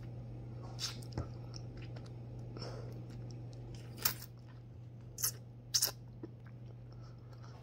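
A person chewing close to the microphone: a few short wet smacks and clicks of the mouth, the loudest about four and six seconds in, over a steady low hum.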